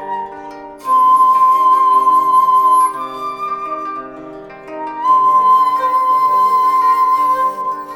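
Background music: a flute-like melody holding long notes over a plucked-string accompaniment, with two loud phrases starting about a second in and about five seconds in.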